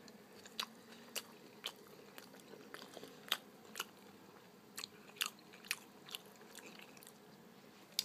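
A person chewing a mouthful of pizza, with soft, irregular mouth clicks about once or twice a second.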